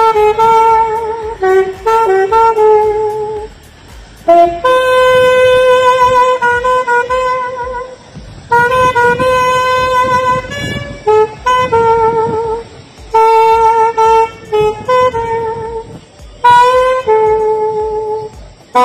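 Solo saxophone playing a slow melody in phrases, with long held notes, some with vibrato, and short breaths between phrases.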